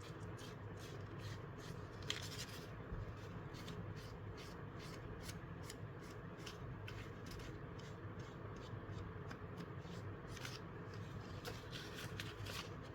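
Quick, repeated rubbing and dabbing strokes of Distress Oxide ink applied along torn paper edges, one stroke after another across the layers, with a sharper tap about two seconds in.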